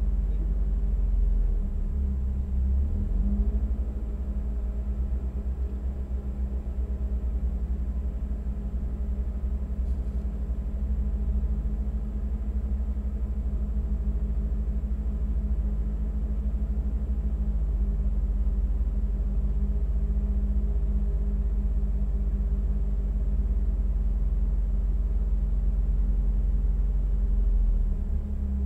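Opel Tigra's engine idling steadily, a low even hum heard from inside the car's cabin.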